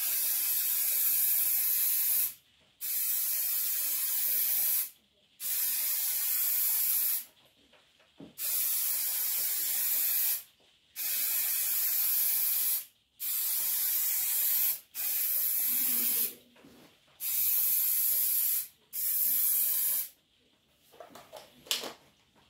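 Aerosol can of clear acrylic lacquer spraying in about nine hissing bursts of one to two seconds each, with short pauses between, as a coat goes onto the wood. The spraying stops about two seconds before the end.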